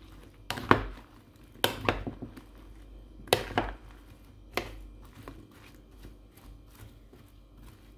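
Metal spoon stirring diced raw eggplant coated in beaten egg in a glass bowl, knocking against the glass in a handful of sharp clinks over the first five seconds, then only soft shuffling of the pieces.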